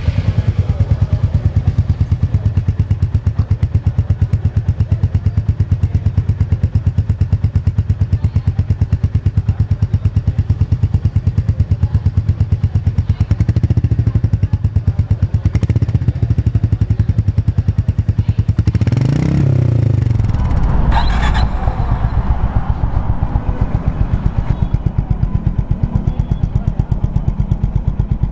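Single-cylinder 350 cc motorcycle engine idling through its stock exhaust with a steady, even thump, given a couple of light throttle blips and then one bigger rev that rises and falls about two-thirds of the way through.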